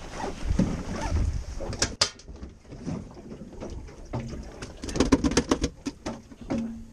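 Lingcod and rockfish flopping in an aluminium fish box on a boat deck: one sharp click about two seconds in, then a flurry of sharp knocks and slaps against the metal about five seconds in.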